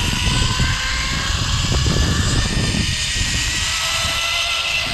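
Zipline trolley pulleys running along the steel cable, giving a steady whine that slowly rises in pitch, with heavy wind rumble on the microphone.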